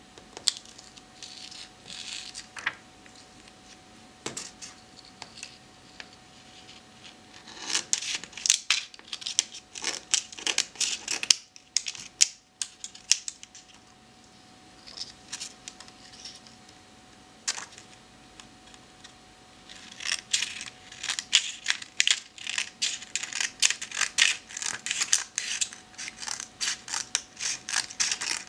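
Scissors cutting photo prints, a run of rapid short snips about eight seconds in and another long run from about twenty seconds on, with a few single snips between. A faint steady tone runs underneath.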